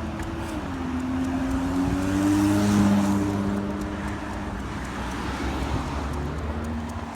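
A car passing by on the road, its engine and road noise swelling to loudest about three seconds in and then fading.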